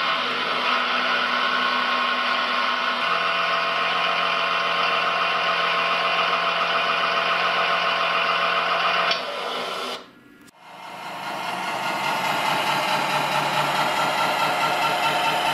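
RC hydraulic model excavator (a Liebherr 956 replica) running steadily with a mechanical whine from its hydraulic pump and track drives as it crawls along. The sound drops sharply about nine seconds in, stops briefly, then builds back up.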